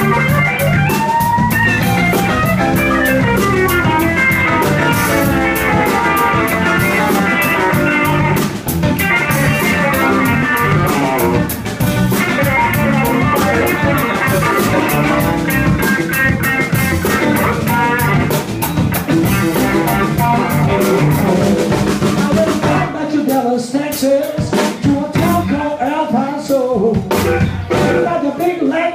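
Live blues band playing: electric guitars, electric bass and drum kit. About 23 s in, the bass and cymbals drop out, and an electric guitar plays bending lines over sparse drum hits.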